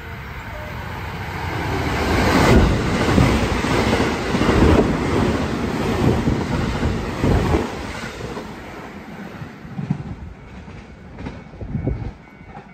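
Eight-car JR West 225 series and 223 series electric train running through the station at speed, its wheels clattering over the rail joints. It builds as it approaches, is loudest for about five seconds as it goes by, then fades with a few scattered clicks.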